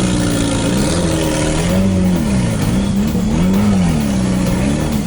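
Off-road 4x4 competition vehicle's engine revving up and down repeatedly, with the pitch swinging about once a second in the second half.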